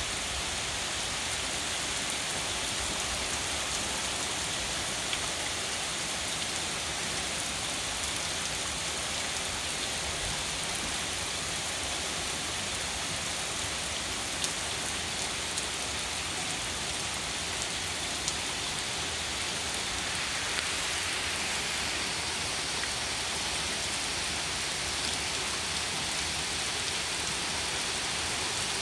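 Steady heavy rain falling on a street, lawn and trees, with a few sharper taps of drops landing close by.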